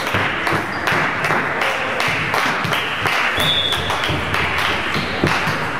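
Scattered hand clapping and applause in a sports hall, many quick irregular claps.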